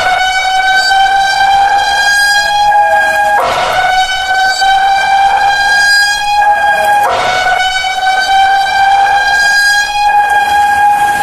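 EAS-style emergency alarm tone sounding three long horn-like blasts of about three and a half seconds each, with short breaks between. Each blast holds one pitch that rises slightly as it goes.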